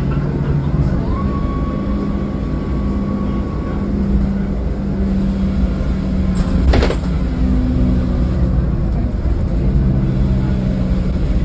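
Mercedes-Benz O500LE city bus under way, heard from inside the passenger cabin: a steady engine and road drone whose engine note shifts pitch a few times, with a thin whine for a few seconds near the start. A single sharp knock sounds about seven seconds in.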